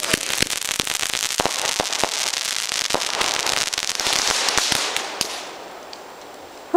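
Consumer fireworks crackling: a rapid, dense run of small pops over a hiss that thins out and fades about five seconds in.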